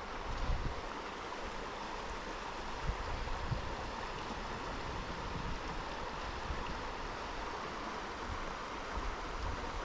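Eno River rushing steadily over shallow rocky riffles, a continuous splashing water sound. A few brief low wind bumps hit the microphone, about half a second and three seconds in.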